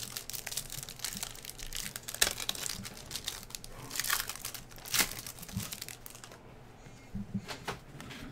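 Clear plastic wrapper of a trading card pack crinkling and tearing as it is opened by hand, with sharp crackles about two and five seconds in. It goes much quieter after about six seconds.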